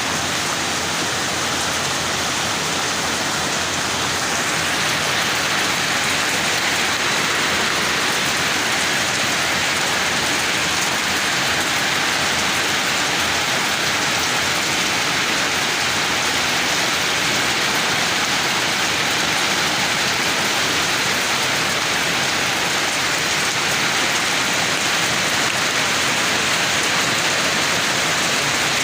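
Steady heavy rain falling on surfaces, a constant dense hiss that grows a little louder about four seconds in.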